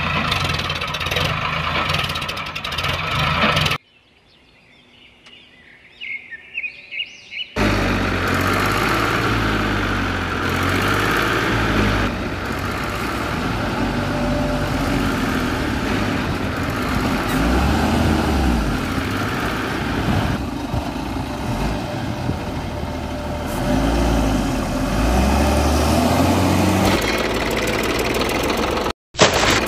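Tractor engine running steadily. About four seconds in it drops out for a few seconds, leaving faint bird chirps, then resumes.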